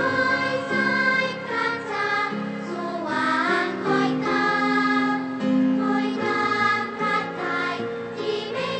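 Korean girls' choir singing together, a song in praise of the Thai king, with notes held and moving from one to the next throughout.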